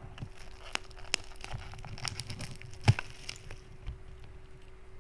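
Scattered clicks and crackles of a small bulb package being handled and opened by hand, with one sharper click about three seconds in.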